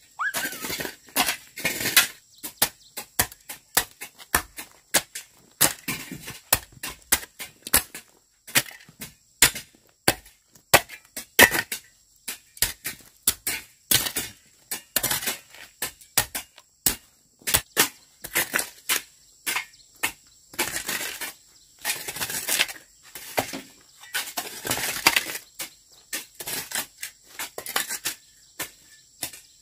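Hand hoes chopping into and scraping dry, stony earth: irregular sharp strikes about one to two a second, with longer scrapes in the second half.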